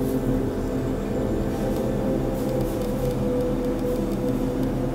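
Soft background music of sustained, held notes; no tool or handling sounds stand out.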